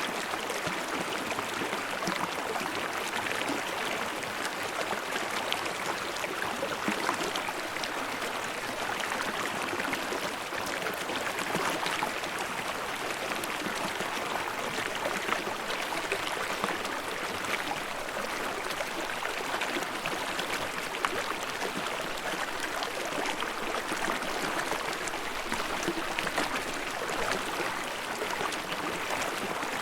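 Stream water babbling steadily, with a dense patter of small splashes.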